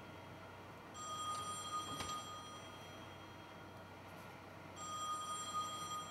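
A high electronic ringing tone sounds twice, each ring lasting about a second, roughly four seconds apart. A single sharp click comes at the end of the first ring.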